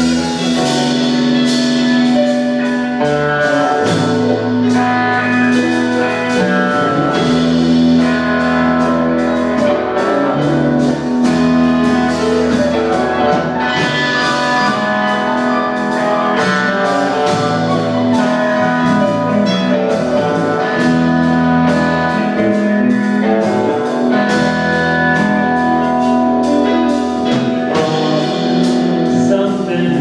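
Live band playing: bass guitar, keyboards, drum kit and electric guitars, with long held notes over a steady bass line and cymbals. The music runs on without a break.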